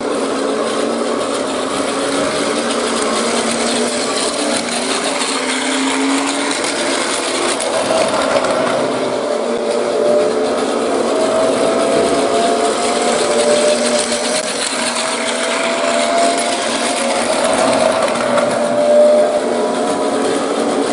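Small electric motor whirring steadily, with gear noise and a whine that slowly rises in pitch: a battery-powered toy train running along its track.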